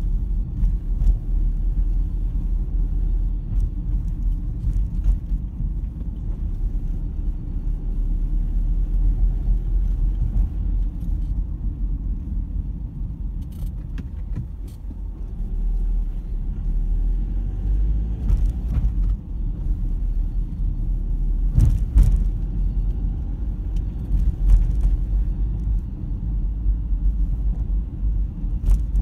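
A car being driven, heard from inside the cabin: a steady low rumble of engine and road noise, with a few brief clicks or knocks now and then.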